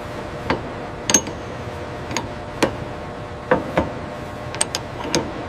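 Light metal clicks and taps from tools being handled, about ten of them at irregular intervals, over a steady machinery hum.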